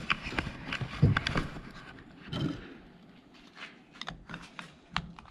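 Hands handling a plastic amber light cover and the off-road light it fits: scattered clicks and taps, with a louder knock about a second in.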